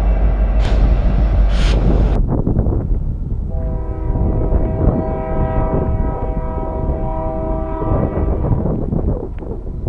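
Heavy rumble of a passing freight train that breaks off abruptly, then a diesel locomotive's multi-chime air horn sounding one long blast of about five seconds over the train's engine and rail noise.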